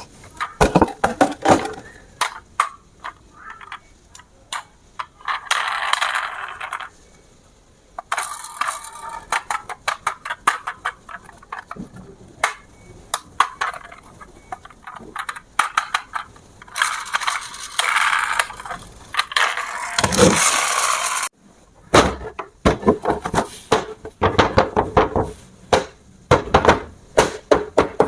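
Hard plastic clicking, knocking and rattling as RC toys and their packaging are handled, with two longer stretches of scraping or rustling noise.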